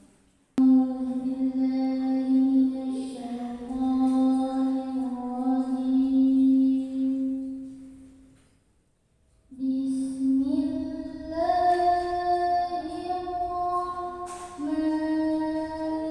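A girl's voice reciting the Quran in the melodic qiro'at style, drawing out long notes that step up and down in pitch. A breath pause of about a second comes just past the middle before the next phrase.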